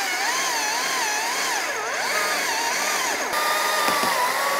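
Stihl battery chainsaw cutting through an oak limb. Its motor whine wavers up and down and dips sharply about two seconds in as the chain bogs in the wood, then runs steadier from about three seconds in.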